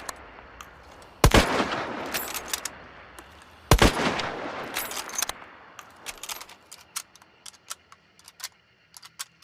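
Mosin Nagant bolt-action rifle firing twice, about two and a half seconds apart, each shot with a long echoing tail. A run of sharp metallic clicks follows in the second half.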